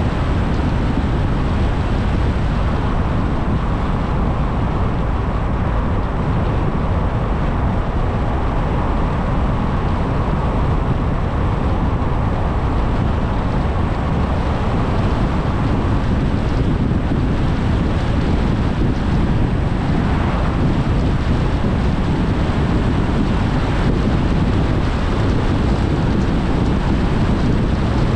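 Car driving at a steady speed: a constant rumble of road and wind noise.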